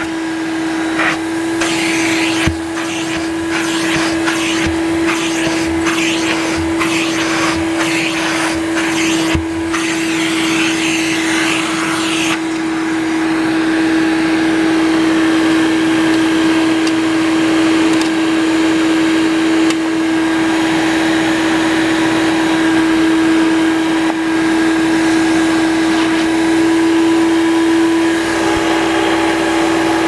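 1995 Hoover Turbopower 2 U2464 vacuum cleaner running steadily with a constant motor whine. For the first twelve seconds or so, rapid clicks and crackle come through as the hose tool sucks up sawdust from the carpet. After that it runs smoother and slightly louder.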